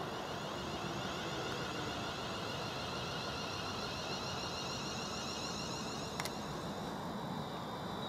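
London Northwestern Railway Class 350 Desiro electric multiple unit drawing slowly into the platform: a steady rumble of wheels on rail under the high, warbling whine of its traction motors. One sharp click about six seconds in.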